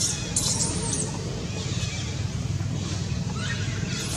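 Baby monkey giving short, high-pitched squealing cries, two near the start and another near the end, over a steady low hum.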